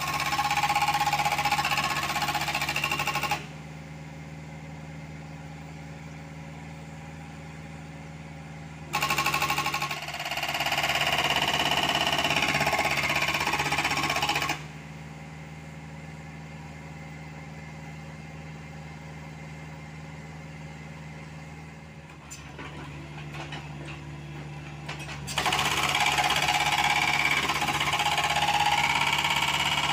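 Hydraulic breaker on a Caterpillar 305.5E2 mini excavator hammering rock in three bouts: one ending a few seconds in, one of about five seconds starting about nine seconds in, and one starting near the end. Between bouts the excavator's diesel engine runs steadily.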